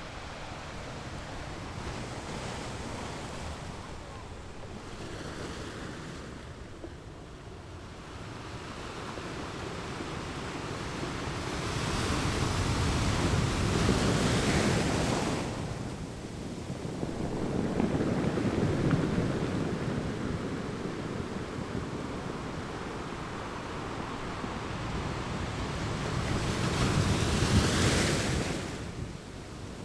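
Ocean surf breaking and washing up the beach, swelling louder and fading away three times, with wind rumbling on the microphone.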